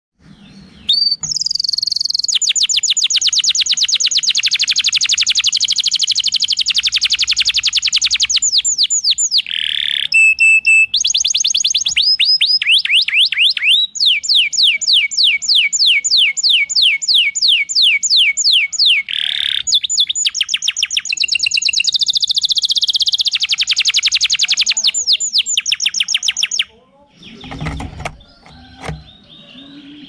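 Domestic canary singing: long, fast trills of rapidly repeated downward-sweeping notes, switching to a new trill every few seconds. Near the end the song stops and a few soft knocks follow.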